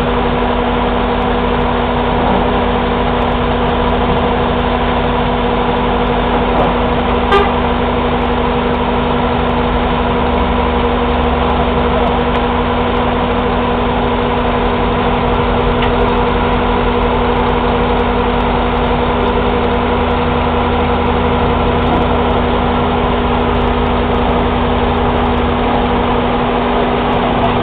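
Concrete mixer truck running steadily close by, a continuous engine drone with a steady hum of several held tones. A single sharp click comes about seven seconds in.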